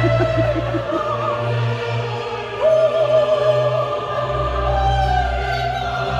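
Opera music: operatic singing in long held notes with vibrato over orchestral accompaniment, a new high note coming in about two and a half seconds in.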